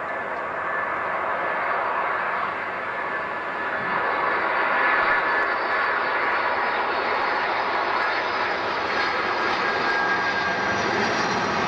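Boeing 747-400's four jet engines on landing approach, growing louder over the first few seconds and then holding a steady rushing rumble with a thin high whine on top.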